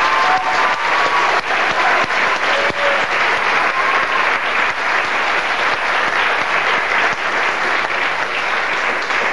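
A theatre audience applauding steadily at the end of a sung chorus number.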